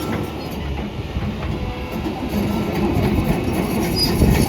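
John Deere 160G LC hydraulic excavator running: a loud, steady machine noise with an irregular rattling clatter over it.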